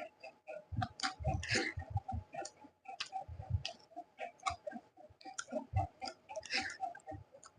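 Close-up mouth sounds of someone eating rice and dal: wet chewing, smacking and soft low thuds of swallowing, in irregular bursts. Under them runs a steady, regular ticking.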